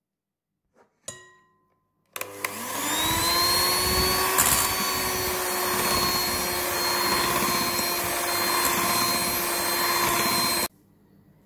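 Electric hand mixer switched on about two seconds in, its motor spinning up with a rising pitch and then running steadily as the wire beaters whip cake batter. It stops abruptly near the end. A short tap is heard just before it starts.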